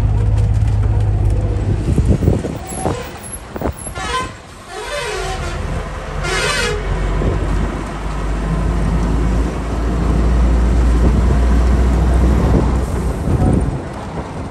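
Heavy truck's low, steady engine drone with road noise, easing off around two seconds in and building again after about seven seconds. A vehicle horn sounds twice, at about four and six seconds in.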